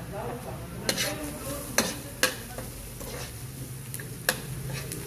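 Chopped onions and garlic sizzling in oil in a steel wok while a metal spoon stirs them, clinking sharply against the pan four times.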